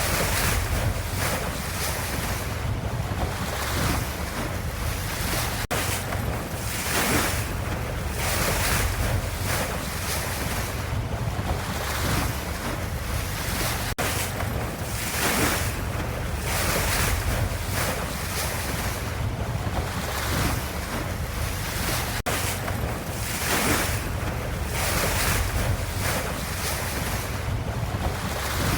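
Ocean waves washing in, swelling and easing about every two seconds over a steady low rumble.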